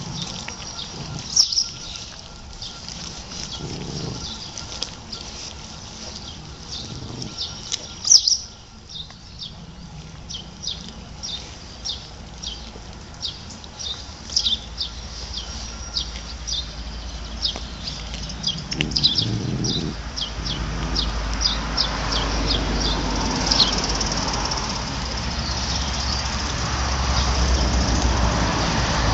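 Newfoundland puppies chewing and tearing at a piece of green tripe: a long run of quick, irregular wet smacking and gnawing clicks. A low rumble builds up in the last third.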